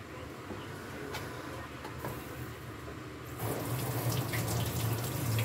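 A kitchen tap is turned on about three and a half seconds in, and water runs steadily into the sink. Before that there are a few light knife taps on a cutting board.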